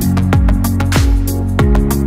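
Electronic background music with a steady beat: deep kick drums that drop in pitch about every 0.6 seconds, with sharp high percussion hits over sustained chords.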